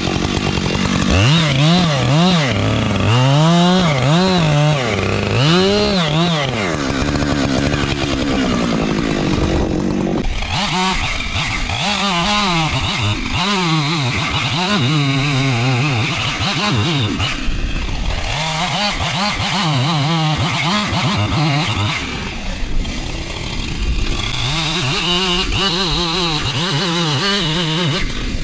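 Gas chainsaw engine running loud, its pitch rising and falling again and again as it revs up and eases back, the way a saw goes while it works through a cut.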